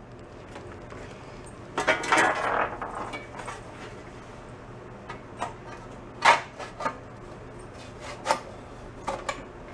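Sheet-metal tank parts clanking, scraping and tapping against a steel bicycle frame as they are fitted by hand. A scraping rattle comes about two seconds in, then scattered sharp clicks and knocks, the loudest a little past six seconds, over a faint steady low hum.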